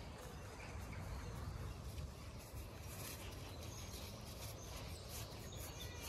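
Close rustling of a leather work glove scratching a sheep's woolly head and neck, over a low rumble, with faint bird chirps in the background.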